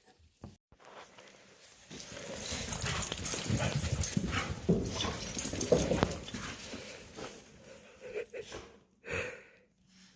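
Heeler dogs playing and moving about, a busy jumble of short knocks and noises that is loudest for a few seconds in the middle and dies away toward the end.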